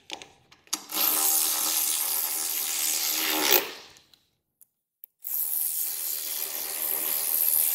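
Cordless socket driver running bolts in: two runs of about three seconds each, the motor whining steadily and winding down at the end of the first.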